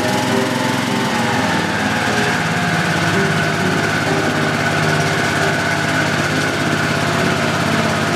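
Johnson outboard motor with its cowling off, running steadily on a test stand.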